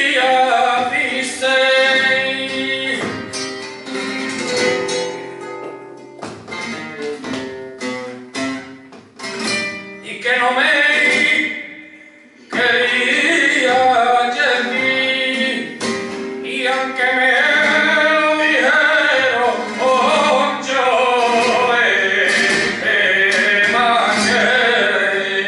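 Male flamenco singing with Spanish guitar accompaniment. The guitar's strummed and plucked strokes stand out in the middle, there is a short break about halfway, and then the voice comes back strongly over the guitar.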